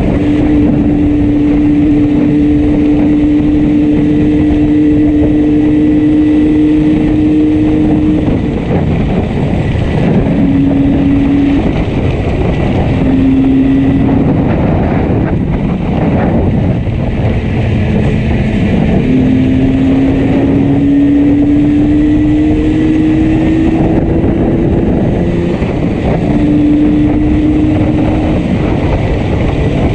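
Yamaha RD350's two-stroke twin engine running on the move with one cylinder misfiring heavily, under heavy wind noise. The engine note holds steady, breaks off in short spells, then climbs slowly.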